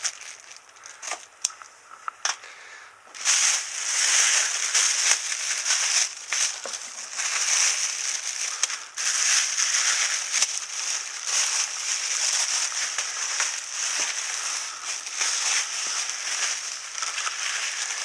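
A few light clicks and rustles, then, about three seconds in, continuous loud crinkling and crackling of plastic packaging as it is handled and pulled off.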